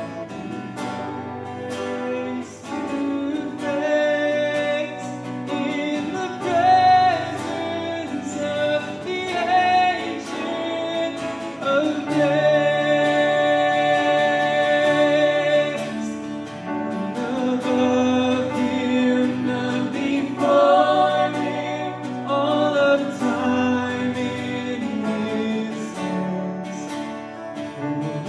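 Live worship song: acoustic guitar strumming under singers' voices carrying a melody with long held notes.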